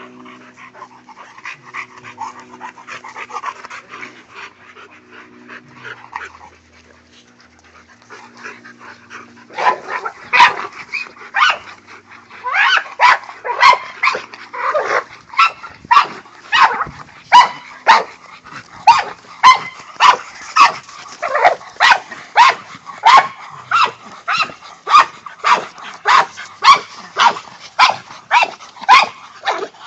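Pit bull-type dogs barking: faint at first, then from about ten seconds in a steady run of loud barks, roughly two a second.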